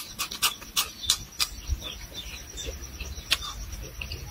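Close-up chewing and lip-smacking as a man eats a raw red chili: a quick run of crisp mouth clicks in the first second and a half, then sparser ones.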